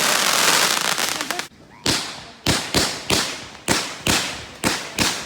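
Fireworks going off overhead: a dense hissing crackle that stops abruptly about a second and a half in, then a quick run of about eight sharp bangs, roughly two a second, each with a short fading tail.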